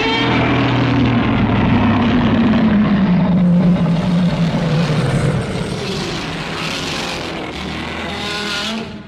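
Godzilla Terrestris roar sound effect: one long, rough creature roar that starts suddenly, its pitch sinking slowly over the first five seconds, then easing off and fading out near the end.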